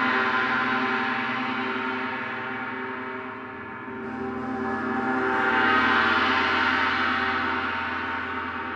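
Large planetary gongs, tuned to the frequencies of the planets, played continuously: a dense wash of sustained overtones that fades about three and a half seconds in, then swells again to its loudest about six seconds in.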